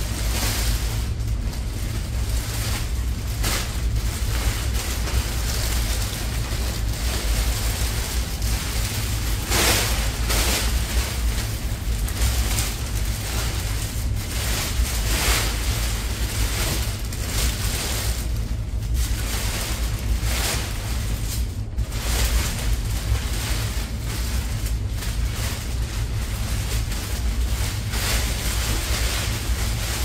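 Thin plastic rain cover rustling and crinkling in irregular swells as it is handled and pulled over an electric bike, over a steady low rumble.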